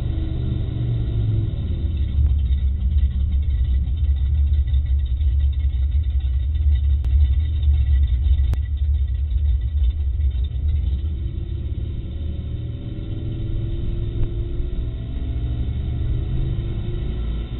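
Low engine and road rumble inside the cabin of a moving car. The engine note drops over the first couple of seconds, then climbs steadily from about two-thirds of the way through as the car speeds up.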